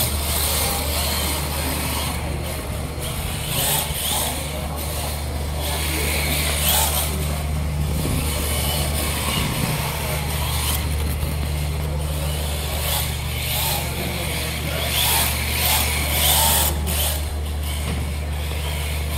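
Rear-wheel-drive RC drift car (Reve-D RDX) sliding round a smooth indoor track, its tyres hissing in repeated bursts as it drifts through the corners, over a steady low hum.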